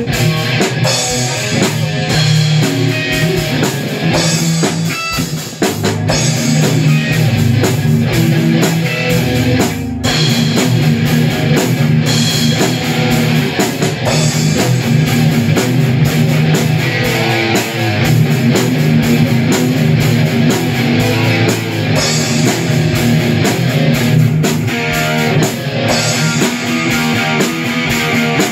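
Live rock band playing loud: electric guitars over a drum kit keeping a steady beat.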